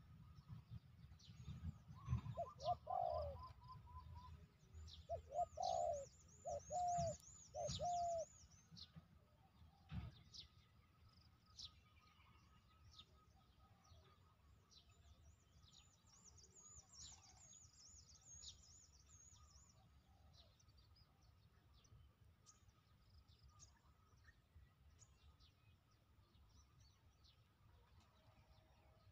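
A dove cooing: about four low coos between roughly two and eight seconds in. Small birds chirp high and thin throughout.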